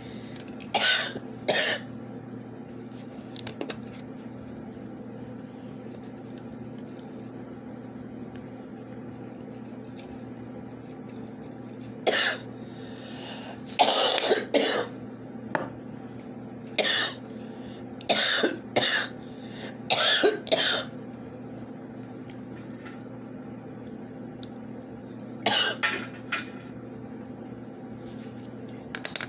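A person coughing in repeated fits of short, harsh coughs, clusters of two to four, after a hit of cannabis wax, over a steady low hum.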